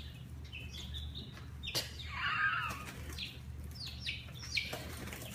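Baby chicks peeping: short high peeps scattered throughout, with a sharp click just before two seconds in and a louder wavering call just after.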